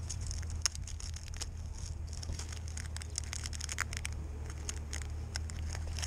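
Crinkling and clicking of a clear plastic tackle package being handled and opened by hand: many irregular small crackles, over a steady low hum.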